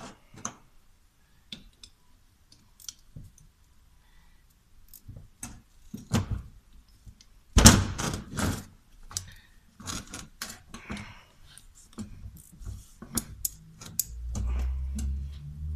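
Metal hand tools clinking and knocking as a ring spanner is picked up and worked on the bolts of a Toyota Hilux D4D turbocharger's cast exhaust housing. The clicks come irregularly, a sharp knock about seven and a half seconds in is the loudest, and a low rumble comes in near the end.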